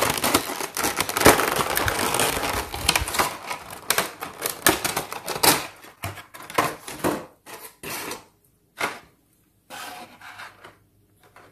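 Clear plastic packaging crinkling and crackling as a plastic blister tray is pulled out of its plastic bag. It is dense for about the first six seconds, then turns to scattered crackles as the tray is handled.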